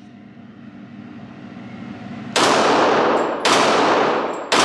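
Three shots from a Glock 22 pistol in .40 S&W, about a second apart, starting a little over two seconds in, each ringing on in the echo of a concrete indoor range.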